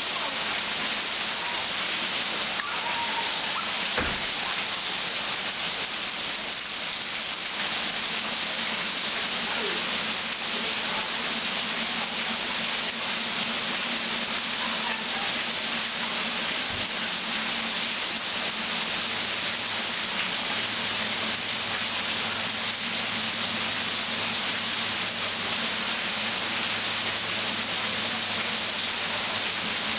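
Heavy rain falling steadily onto standing floodwater: a dense, even hiss. A single knock comes about four seconds in, and a faint low hum joins partway through.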